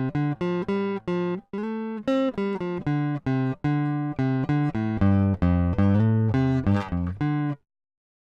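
Strat-style electric guitar played clean through its single-coil pickups: a melodic line of separately picked notes, about three or four a second, that moves into lower notes about five seconds in and stops abruptly shortly before the end.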